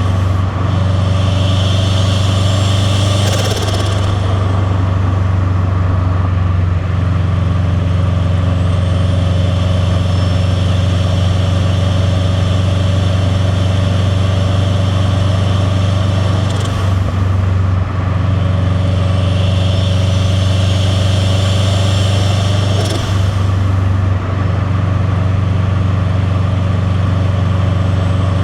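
Turbocharged 2.0-litre boxer four of a 2001 Subaru Impreza WRX STi (VF48 turbo, catless downpipe, titanium cat-back) pulling steadily with a deep rumble. Three times the turbo whistle climbs over a few seconds, then breaks off with a short rush of air and flutter as the throttle closes for a shift.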